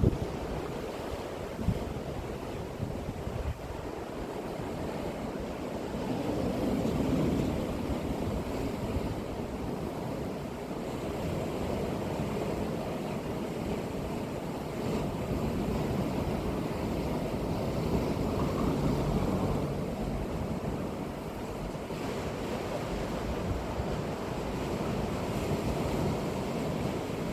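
Sea waves breaking and washing up the beach in a continuous surf, swelling louder as bigger waves come in about a quarter of the way through and again about two-thirds through.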